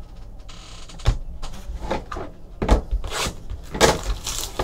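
Hands handling trading cards and card boxes on a tabletop: a short sliding scrape, then several knocks and rustles as things are set down and picked up.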